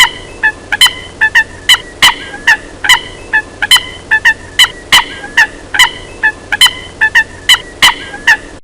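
Coot calling: a rapid run of short, sharp calls, about two to three a second and sometimes in pairs, that cuts off abruptly near the end.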